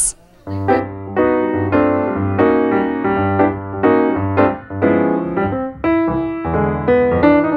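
Background music on piano or keyboard with a bass line, starting about half a second in.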